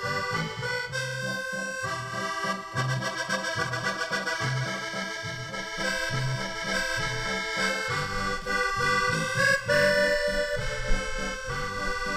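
Accordion played live: a melody over a steady rhythmic bass accompaniment.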